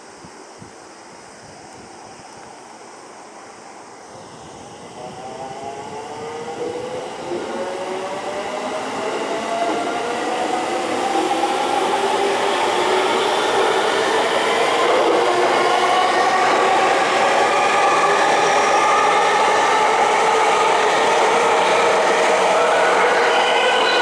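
JR East E231-series Yamanote Line electric train pulling away from a station platform. Starting about four seconds in, its inverter-driven traction motors whine in several rising tones as it accelerates. The sound grows steadily louder as the cars run past close by, together with the noise of the wheels on the rails.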